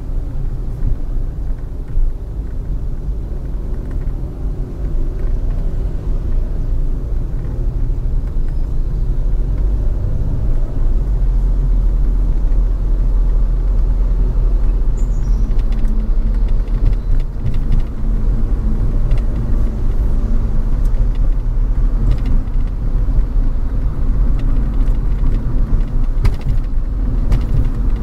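Steady low rumble of a car driving, road and wind noise, growing a little louder about ten seconds in, with a few faint clicks in the second half.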